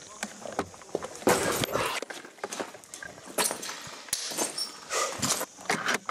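Irregular crunching and rustling with sharp clicks mixed in, from a player moving on foot over rough ground.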